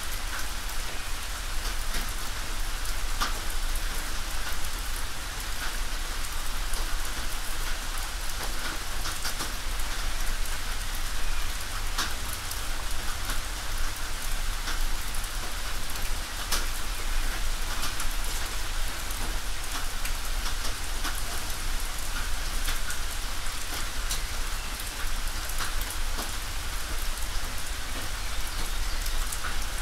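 Steady rain falling on a tin roof: a dense hiss of drops with single louder drop hits scattered throughout.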